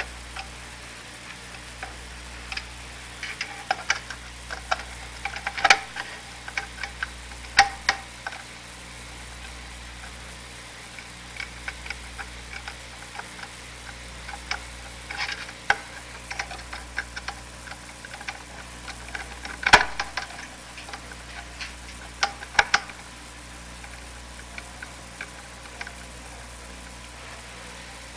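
Scattered small clicks and light knocks of a screwdriver and screws against an oscilloscope's metal chassis as the screws are tightened. They come in two clusters with a sharper knock partway through, over a steady hum and hiss from the old recording.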